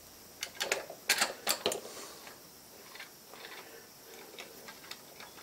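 Sharp metal clicks and ticks of a hex key working a 1/4-28 screw into a tapped hole in a milling machine's knee, mounting a bracket: a quick cluster of clicks in the first two seconds, then a few fainter ticks.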